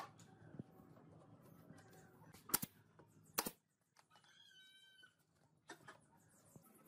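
Wooden lantern parts handled by hand, with two sharp wooden knocks about two and a half and three and a half seconds in. A brief high-pitched animal call follows about a second later.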